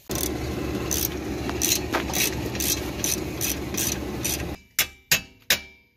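A power tool runs loudly, with a sharp ratcheting click about twice a second, and stops abruptly after about four and a half seconds. Three sharp knocks follow in quick succession.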